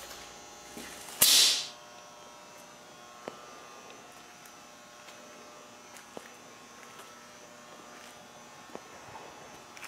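A half-second burst of compressed-air hiss from a paint spray gun being triggered about a second in, followed by a faint steady hum with a few light clicks.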